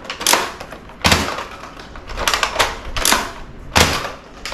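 Nerf Flip-32 toy blaster being worked by hand: a string of sharp plastic clacks and knocks, the two loudest, with a dull thud in them, about a second in and near the end.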